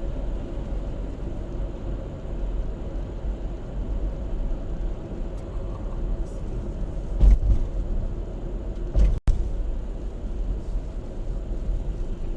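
Steady low rumble of a car's engine and road noise heard from inside the moving car through a dashcam's microphone. Two short thumps come about seven and nine seconds in, and the sound cuts out for an instant just after the second.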